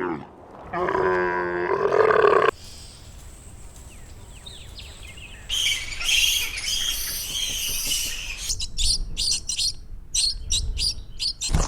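A series of animal calls: a drawn-out pitched call in the first seconds, then twittering bird-like chirps from about the middle, then a quick run of clicks near the end.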